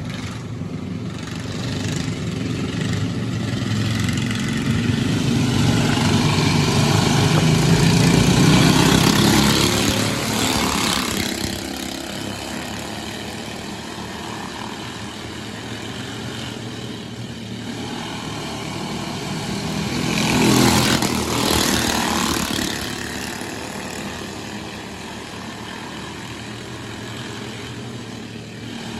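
Dirt-track race cars running laps together. Their engines swell as the pack passes, loudest about a third of the way in and again about two-thirds in.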